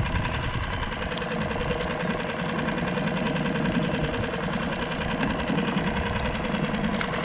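Small outboard motor idling steadily, out of gear in neutral.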